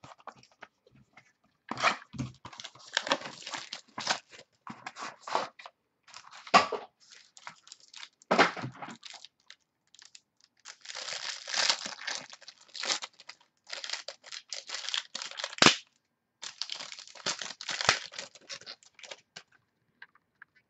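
Plastic wrapping of a trading-card box or pack being torn open and crinkled by hand, in repeated bursts of crackling with short pauses and one sharp click about three-quarters through.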